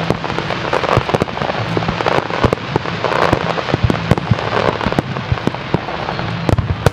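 Daytime fireworks finale: many shells bursting at once, with a dense crackling from crackle stars and many sharp bangs scattered through it.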